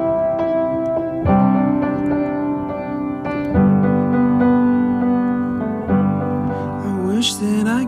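Background music: a slow piano playing held chords that change about every two seconds.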